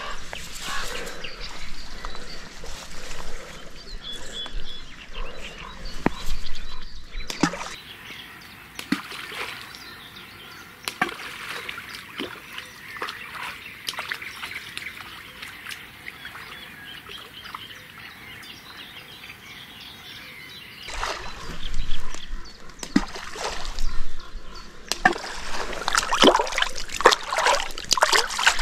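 Fish splashing and smacking at the water surface as they take feed: a scatter of small splashes and slurping gulps, busier and louder in the last third.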